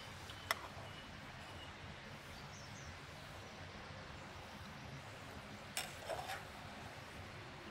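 Metal spatula tapping and scraping against a frying pan and a tin plate as fried tomato slices are lifted across: one sharp tap about half a second in and a short clatter of taps near six seconds, over a steady quiet outdoor hiss.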